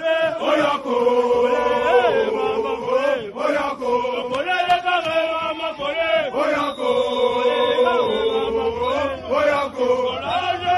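A crowd of soldiers chanting together in loud unison: a repeated sung phrase with long held notes.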